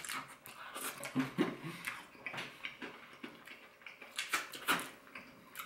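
Crispy fried chicken crust crackling and crunching in irregular clicks as a piece is chewed and pulled apart by hand.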